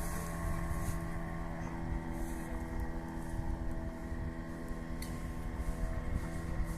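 5 hp outboard motor running at a steady, unchanging speed, with an even engine drone.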